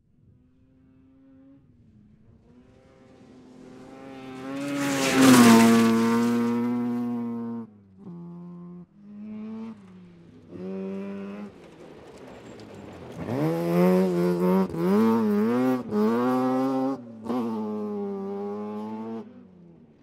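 1970 Mazda RX2 rally car's rotary engine at race pace. The car approaches and passes about five seconds in, its pitch dropping as it goes by. It is followed by short bursts of throttle with lifts between, and then a long loud stretch of high revs rising and falling under hard throttle in the second half.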